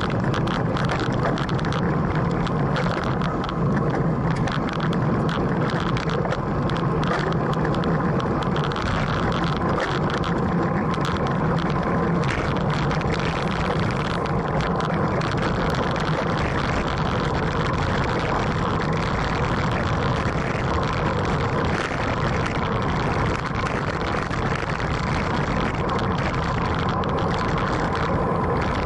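Steady wind and road noise picked up by an action camera on a road bike as it rolls and gathers speed, with scattered faint clicks.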